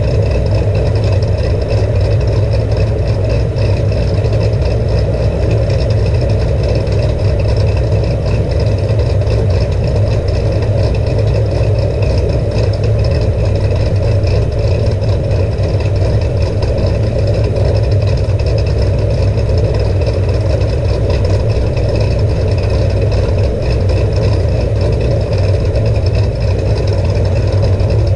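Cammed Chevrolet Camaro SS 6.2-litre V8 idling steadily through an MBRP exhaust, heard close to the tailpipes.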